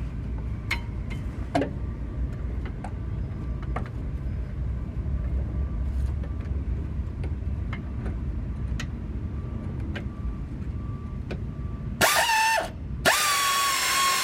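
Scattered sharp clicks and clinks of hand tools at work, a few seconds apart, over a steady low rumble. Background music comes in about twelve seconds in.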